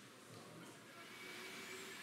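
Near silence: faint room tone, with a faint thin steady tone for about a second midway through.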